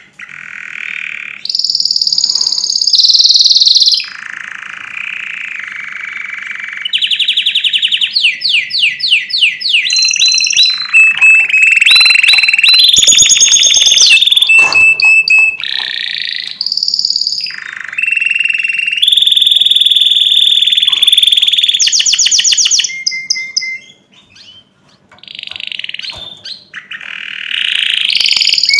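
Domestic canary singing loudly, running through a string of tours: fast rattling trills, rapid repeated chips and clear held whistles, each phrase lasting a second or two before switching to the next. The song breaks off briefly near the end before resuming.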